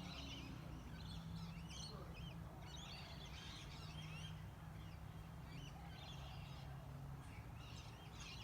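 A flock of birds chirping and calling faintly, many short overlapping calls. Under them runs a low steady hum that stops about seven seconds in.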